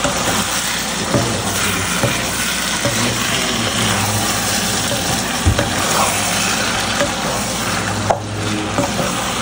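A wooden spatula stirring and scraping thick macaroni and cheese with shrimp in a hot pan, the food sizzling steadily, with a dull knock of the spatula against the pan about five and a half seconds in.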